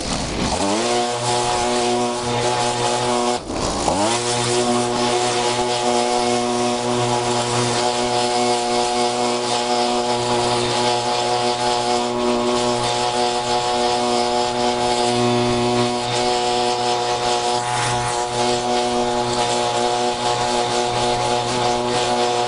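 Gas leaf blower running at full throttle, a steady engine note over rushing air. The engine briefly drops and comes back up twice, about half a second in and about three and a half seconds in.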